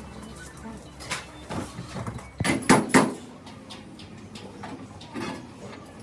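A handful of sharp, irregular knocks, the loudest a quick run of three about two and a half to three seconds in.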